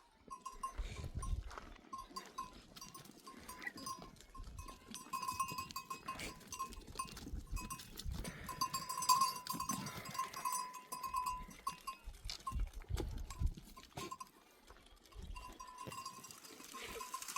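A herd of goats on the move, the bells on the animals clinking and ringing irregularly throughout.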